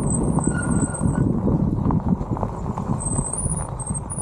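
Electric mobility scooter riding over a rough gravel road: a steady rumble of tyres with a constant rattle of small knocks, and a thin, high wavering whine from its motor that drops out partway and comes back higher about three seconds in.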